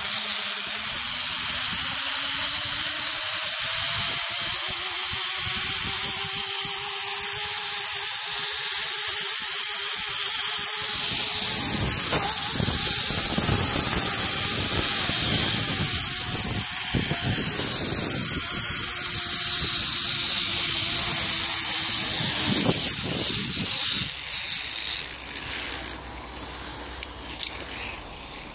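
Zip-line trolley running along a steel cable at speed: a steady whirring whine that rises in pitch over the first few seconds and drops toward the end, under a loud rush of air. The sound falls away about 24 seconds in as the ride slows.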